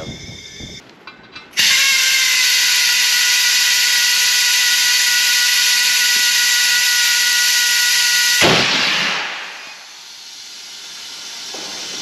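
Compressed air rushing out of a homemade bead blaster into a tire to seat its bead: a loud, steady hiss with a whistle in it that starts suddenly, holds for about seven seconds, then cuts off and dies away.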